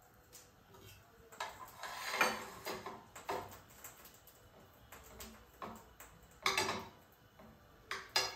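A kitchen knife cutting food on a ceramic plate: quiet, irregular clinks and scrapes of the blade against the plate.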